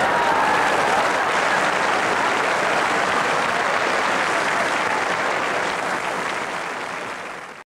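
Audience applauding steadily, growing quieter in the last seconds and cutting off abruptly near the end.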